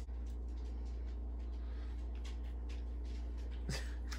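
A steady low hum, with a few faint scrapes and light clicks of spoons against a ceramic mixing bowl as frosting is stirred and scraped off a measuring spoon. One sharper clink comes near the end.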